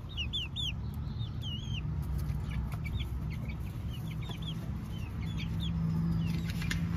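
Young chickens chirping: short high peeps scattered through, often in quick runs of two or three, over a low steady rumble.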